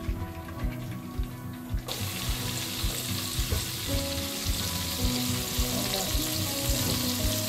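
Breaded conch deep-frying in hot oil in a Dutch oven: a steady sizzle that starts suddenly about two seconds in. Background music with a steady beat plays throughout.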